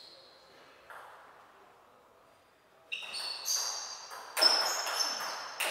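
Table tennis rally: the celluloid ball struck by rubber-faced bats and bouncing on the table. Sharp ringing clicks come in quick succession from about three seconds in, after a near-quiet lull with one faint tap about a second in.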